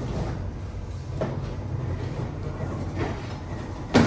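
Steady low mechanical rumble of bakery equipment, with a few light knocks and one loud thump near the end.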